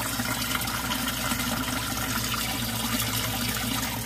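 Water trickling and splashing into an aquaponics fish tank from a pipe, with air bubbles rising from the aerator, over a steady low hum.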